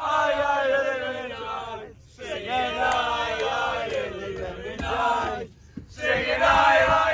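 A group of men chanting a football song together inside a van, in three loud phrases with short breaks about two seconds in and near six seconds.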